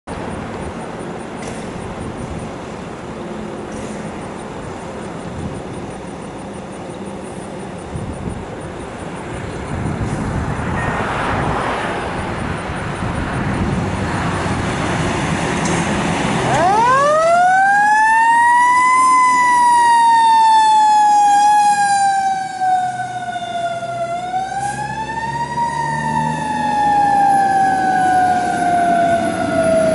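Fire engine's siren starting up about halfway through with a quick rise in pitch, then falling slowly and winding up again twice in a long wail, signalling an emergency response. Before it, a steady rumble of the truck's engine and the road.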